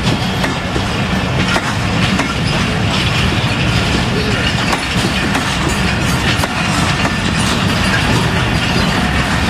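Passenger train coaches rolling past on the rails as the train pulls out of the station: a loud, steady rumble with scattered clicks and clanks from the wheels.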